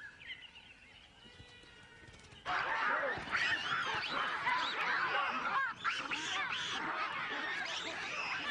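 A troop of baboons screaming and barking in alarm during a crocodile attack, many calls overlapping. A few faint calls come first, then the chorus starts abruptly and loudly about two and a half seconds in.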